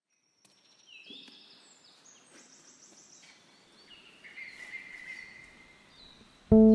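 Faint birdsong of several chirping and whistled phrases. Near the end a guitar chord is strummed loudly as the song begins.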